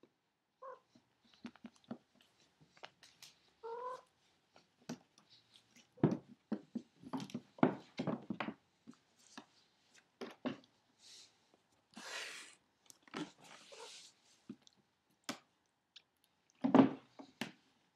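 A cat scuffling and rolling on a hardwood floor while a hand rubs and plays with it: scattered knocks, taps and fur rustles, with a cluster of louder thumps about six to eight seconds in and another near the end.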